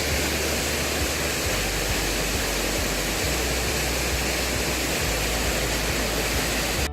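Steady rushing of a mountain stream's water through a rocky ravine, a constant even wash of noise.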